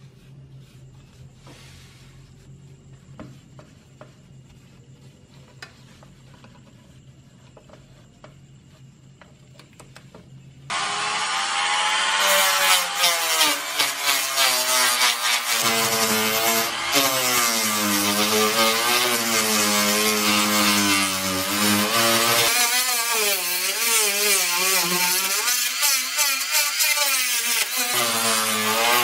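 A rotary tool fitted with a wire wheel brush starts about a third of the way in and runs on, its motor whine wavering up and down in pitch as the brush is pressed against the bare diecast metal body to scrub off corrosion. Before it starts there are only faint scratches and light clicks.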